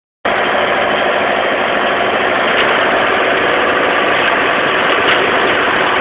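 John Deere tractor engine running steadily under heavy load while ploughing. It is a loud, even drone that cuts in abruptly at the start.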